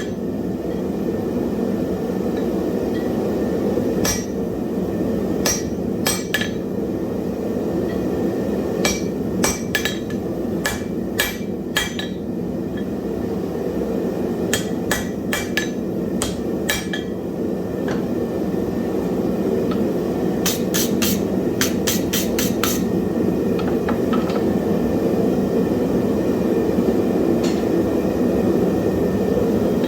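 Hand hammer striking hot wrought iron on an anvil: irregular ringing blows, then a quick run of about eight near two-thirds through, with few strikes after. A steady low rushing noise runs underneath.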